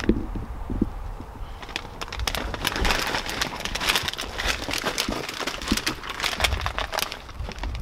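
Crinkly plastic snack bag being handled and shaken. A dense, irregular crackling starts about two seconds in.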